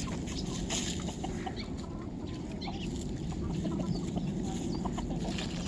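Chickens clucking, many short scattered calls, over a steady low rumble.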